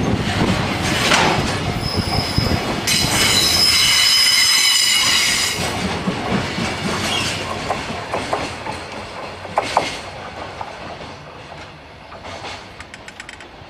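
Heavily loaded container freight wagons rolling slowly through a sharp curve: wheels knocking and clacking over the rail joints, with a loud high-pitched flange squeal about two to five seconds in. The sound then fades as the train moves away.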